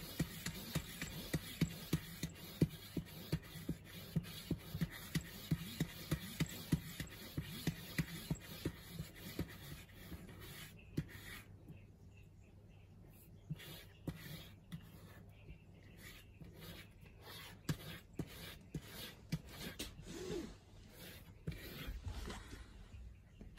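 A cat's claws scratching cardboard in quick rhythmic strokes, about two to three a second. About ten seconds in they slow to scattered, softer scratches, which die out near the end.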